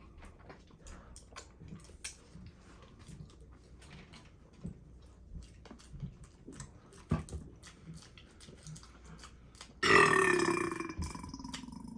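Faint scattered clicks of eating, then about ten seconds in a person's loud, long burp with a falling pitch, which trails off over the next second or two.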